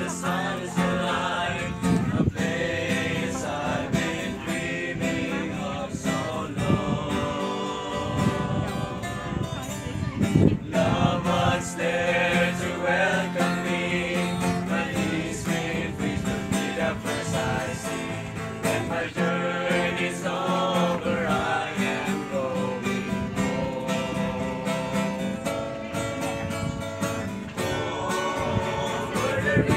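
A small group of young men singing a song together, with instrumental accompaniment.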